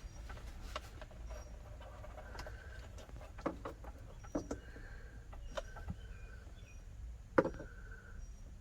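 Scattered light clicks and knocks of a wiring harness connector and relay being handled and plugged in, the sharpest click near the end.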